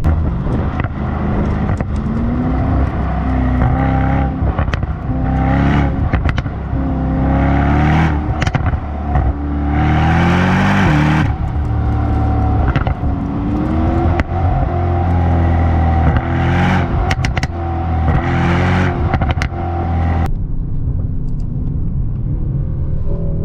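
Brabus Rocket 900's 4.5-litre biturbo V8 accelerating hard through the gears, its pitch climbing and breaking off again and again at the upshifts, with exhaust crackles around the shifts. The engine drops back near the end.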